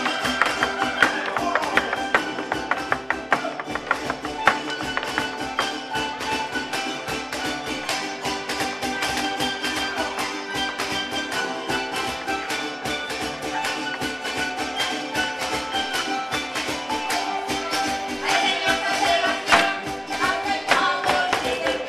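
Live folk string music from harps and guitars, with dancers' shoes tapping and stamping on the wooden stage in time with it.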